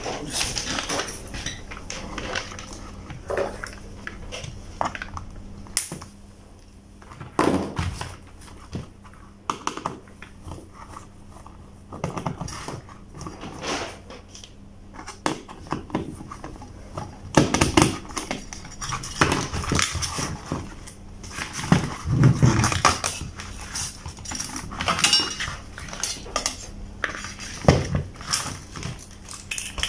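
Parts of a plastic fan heater being handled and taken apart: irregular clicks, knocks and clatter of the hard plastic housing, the wire-coil heating element and its wiring being moved about.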